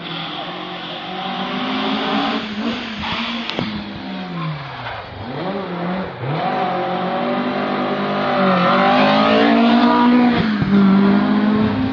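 Competition car engine revving hard as it accelerates, its pitch dropping and climbing again several times as it shifts gear, growing louder near the end as it approaches.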